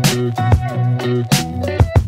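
Background music: an upbeat instrumental track with a steady beat.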